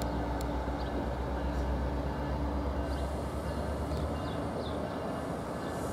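NJ Transit multilevel push-pull train pulling out with its diesel-powered locomotive: a steady low engine rumble and wheel noise that fade about four seconds in as the train moves away.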